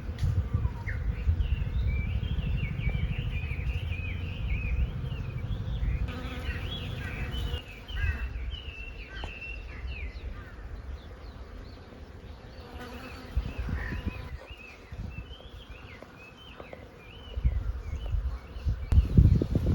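Small birds chirping and twittering in quick, repeated calls over a low buzzing drone. The drone fades out partway through and comes back louder near the end.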